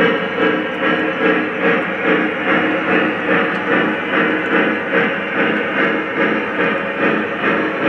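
O-scale three-rail model freight train running past on the layout track, with a steady sound that pulses evenly about twice a second.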